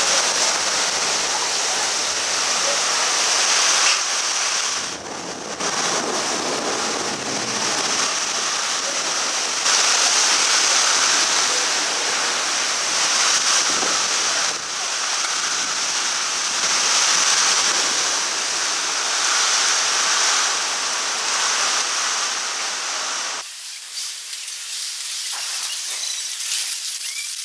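Heavy hailstorm: hailstones and rain pelting down in a dense, steady rush. Near the end the sound turns abruptly thinner and hissier.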